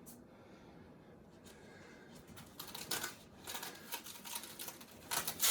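Packaging being handled and pulled off a statue part: irregular rustling and crinkling that starts about halfway through, with the loudest crackles near the middle and at the end.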